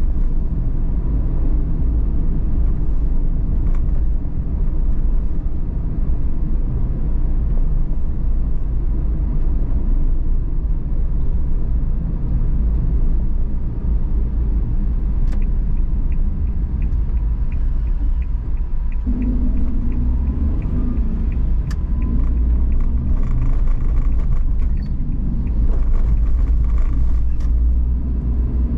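A car driving through city streets, heard from the car: a steady low rumble of engine and road noise. A run of light, quick ticks comes through in the middle.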